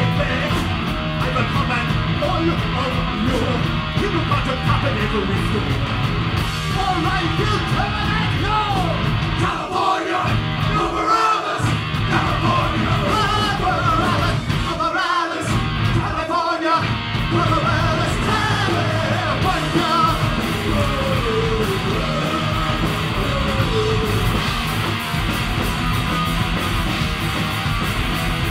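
Live heavy punk-rock band playing loud: distorted electric guitars and drums under a shouted, sung lead vocal. The band briefly drops out a few times partway through.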